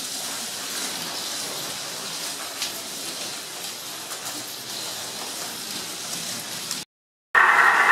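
Slot cars racing on a wooden track: a steady hiss of their small electric motors and pickup braids running along the rails. It cuts out abruptly near the end, and music starts.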